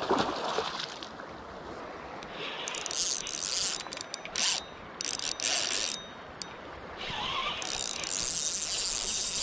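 Spinning-reel drag (Okuma Helios HSX-40) buzzing as a hooked Chinook salmon pulls line off: several short runs from about two seconds in, then a longer run of nearly two seconds near the end. It opens with the splash of the fish at the surface.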